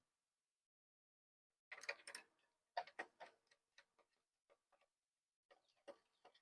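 Faint clicks and clinks of a raccoon-proof latch being fastened on a chicken coop, in two quick clusters about two and three seconds in, then a few scattered light ticks.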